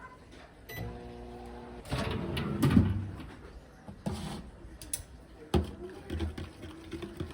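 Microwave oven running with a steady electrical hum that stops and starts again, amid clicks and knocks from its door and from handling the dish, with a louder rough clatter a couple of seconds in.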